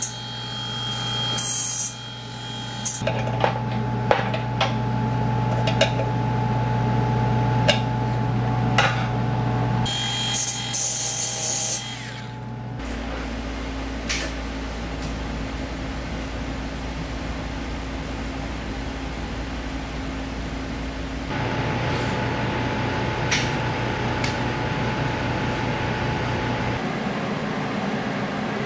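Narrow belt file sander grinding welds on a steel motorcycle gas tank in short runs, with scattered sharp taps, followed about halfway through by the steady electric buzz of TIG welding.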